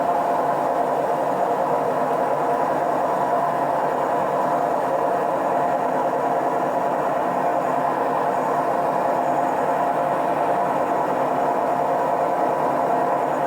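Hotpoint Ariston washing machine on its spin cycle: the drum spinning at a steady speed, a constant whirring hum with a steady whine running through it.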